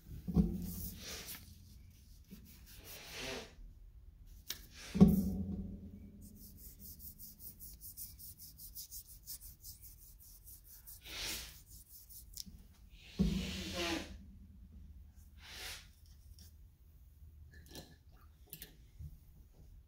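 Rubbing and scraping against a sheet of paper on a wooden tabletop, with a fast fine scratching for a few seconds in the middle. Three short thuds against the table stand out, just after the start, about five seconds in and about thirteen seconds in.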